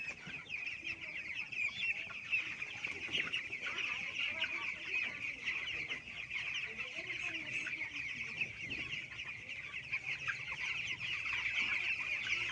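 A flock of chickens calling all at once: a dense, unbroken chorus of high peeps, with a few lower clucks under it.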